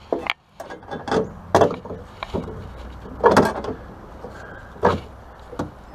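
Irregular knocks, clicks and rattles of hands working on the inner panel of an open car tailgate around the lock area, with the loudest cluster of knocks about three seconds in.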